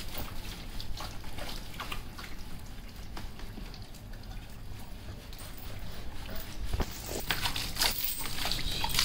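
Water trickling and dripping while a wet, shampooed Labrador is rubbed down by hand. From about seven seconds in come denser, sharper splashes as the dog snaps at water from the tap.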